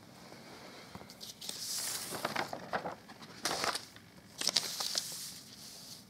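Sheets of paper rustling and crackling as they are handled, in three short bursts.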